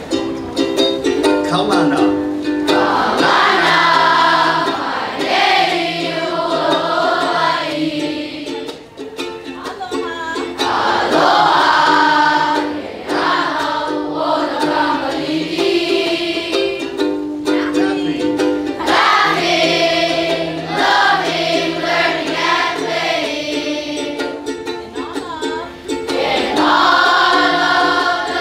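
Ukulele strumming chords, joined about three seconds in by a group of schoolchildren singing the school's alma mater, phrase after phrase with short breaks between lines.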